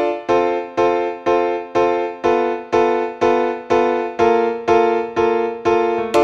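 Background music: an electric piano playing repeated chords, about two a second, each one fading before the next.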